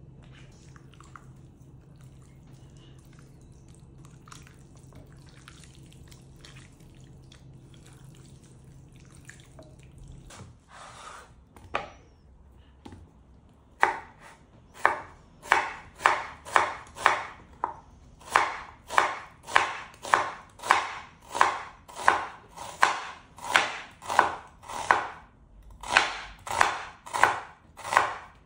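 Knife chopping on a cutting board, with steady strokes about twice a second that begin about halfway through. Before that, only a faint low hum and a few light handling taps.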